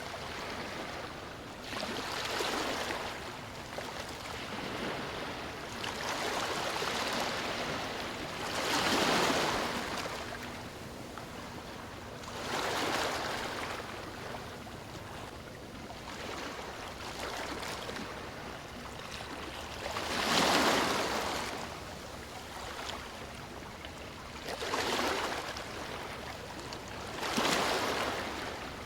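Sea waves breaking and washing up a beach, a surge every few seconds, the largest about a third of the way in and again about two-thirds in, over a steady wash of surf.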